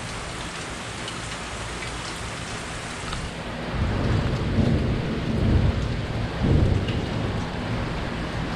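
Steady rain falling, with a low rolling rumble of thunder that builds about four seconds in, swells three times and then eases back.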